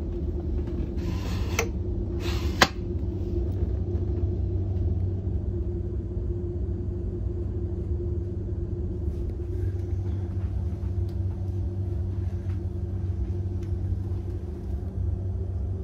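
Steady low rumble and hum inside a railjet passenger coach. Early on there is a brief rustle, then a sharp plastic clack about two and a half seconds in as the litter bin flap under the seat is handled.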